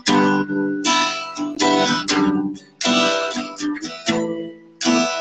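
Acoustic guitar strumming chords, a sharp strum roughly once a second, each chord left to ring and fade: an instrumental passage of a song.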